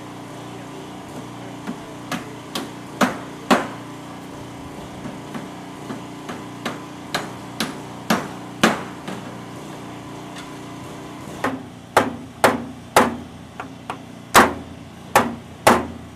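Hammer driving nails through a wooden batten into a roof: sharp strikes, scattered at first, then a steady run of about two a second from about halfway on, over a steady low hum.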